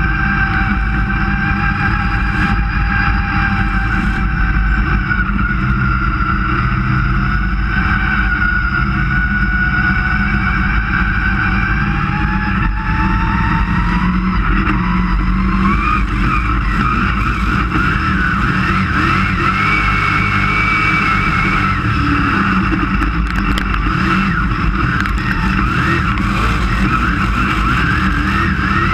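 Dirt-track race car engine heard from inside the cockpit, running hard throughout. Its pitch wavers, climbs over a few seconds about halfway through, then holds higher.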